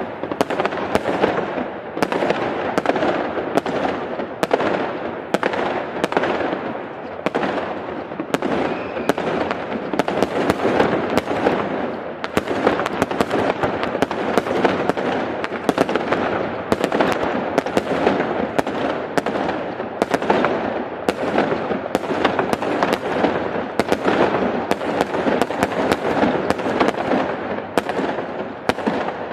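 Fireworks display: a dense, continuous barrage of sharp bangs, several a second, over a steady background of crackle and rumble.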